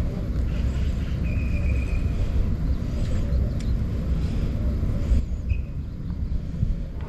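Steady, fluctuating low rumble with a few faint, short high chirps.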